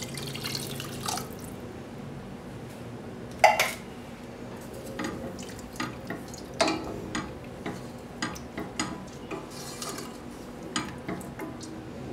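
Wooden spoon stirring chopped canned tomatoes and water in a stainless steel saucepan: wet sloshing and scraping, with knocks and clicks of the spoon against the pot. One sharp knock about three and a half seconds in is the loudest sound.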